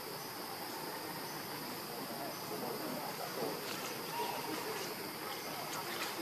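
Steady insect chorus in the forest, a continuous high buzzing at two pitches, with a few faint short sounds in the second half.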